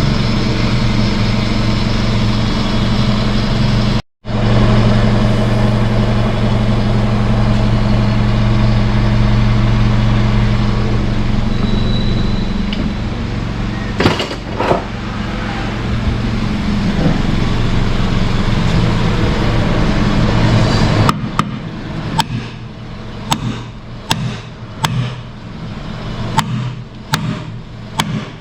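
Toyota Ractis running with a steady engine hum after the rattling part has been tied back. Later the hum drops away and a string of sharp clicks comes, about one or two a second.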